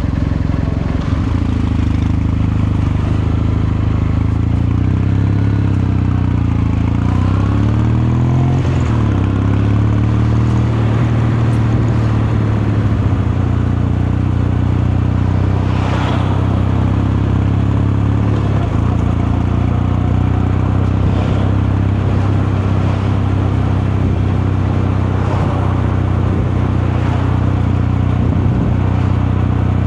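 Kawasaki Meguro K3's air-cooled 773 cc parallel-twin engine and exhaust under way. The engine pitch rises about five to nine seconds in, then holds steady at a constant cruising speed.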